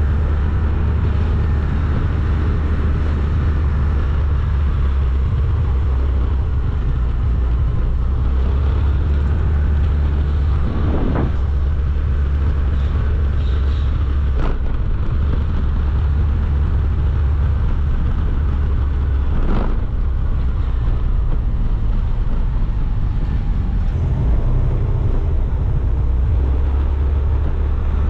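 Motorcycle running at a steady riding pace, with heavy wind rush on the microphone. A few short sharp knocks break through now and then.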